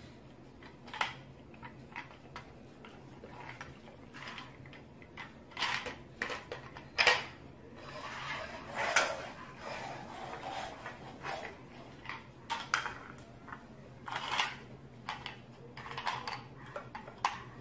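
Small plastic toys clattering and knocking against a hardwood floor as a baby handles them, in scattered, irregular clicks and knocks.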